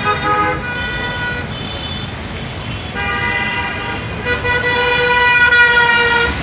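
Vehicle horns honking in street traffic: a few short toots in the first two seconds, then two long blasts, the last held about two seconds, over a steady rumble of traffic.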